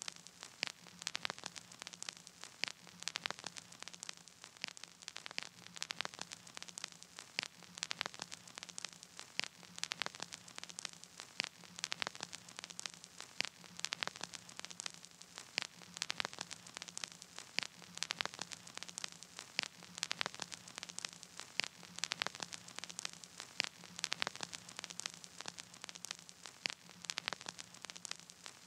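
Crackling static: a steady hiss dotted with irregular sharp clicks and crackles, over a faint low hum, with no music.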